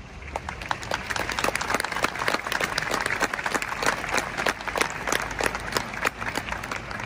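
A large crowd applauding, many hands clapping at once. It builds up over the first second or two and thins a little near the end.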